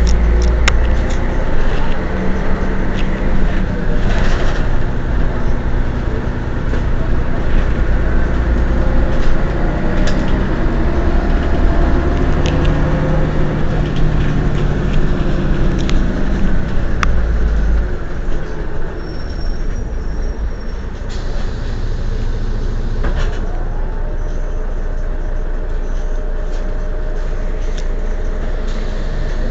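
Mercedes-Benz O 405 N city bus's diesel engine running under way, its note rising and shifting as it pulls and changes gear through the first two thirds, then settling to a quieter, steadier run. Scattered sharp clicks and rattles sound over it.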